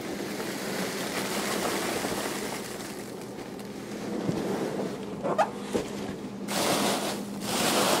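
Foam packing peanuts poured into a cardboard box: a steady rustling hiss for about three seconds. After a quieter lull with a single click, hands push down into the peanuts, with two louder spells of rustling near the end.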